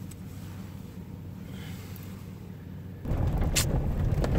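Low, steady rumble inside a pickup truck's cab. It jumps louder about three seconds in.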